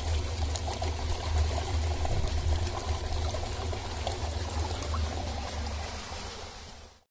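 Water gushing steadily from a pipe outlet and splashing below, with a steady low rumble underneath; it fades out near the end.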